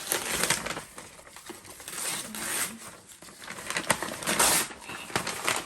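Gift wrapping paper being torn and crinkled as a present is unwrapped, in several short rustling bursts.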